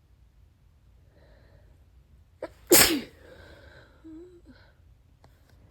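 A person's wet sneeze: a faint hitching in-breath, then one loud sneeze about two and a half seconds in, followed by a short faint voiced sound.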